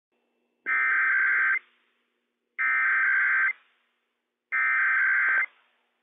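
Emergency Alert System SAME header from NOAA Weather Radio: three identical bursts of digital data tones, each just under a second long and about two seconds apart, carrying the coded Required Weekly Test message.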